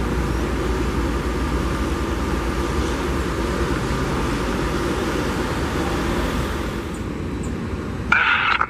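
Steady airport ambience: a low rumble with an even hiss and a faint steady whine. Near the end a brief crackle of air traffic control radio cuts in.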